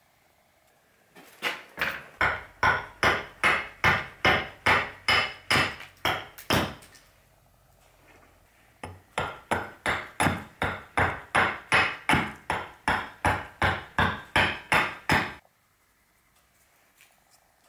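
Carving axe hewing a dried birch burl held upright on a chopping block: quick, sharp chops at about three a second, in two runs with a pause of about two seconds between.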